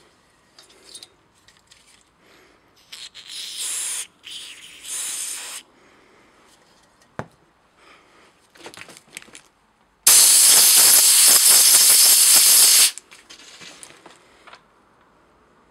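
Spray hissing into a Briggs & Stratton 5 HP carburetor body during cleaning: two short bursts, then a loud steady hiss of about three seconds that cuts off sharply. Small handling clicks come between the bursts.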